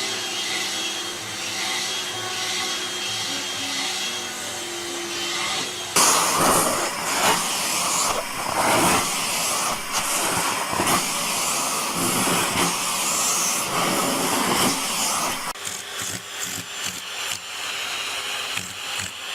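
Vacuum cleaner running with a steady hum. About six seconds in it turns suddenly louder and rougher, a rushing noise that swells and dips, and it eases off a little after about fifteen seconds.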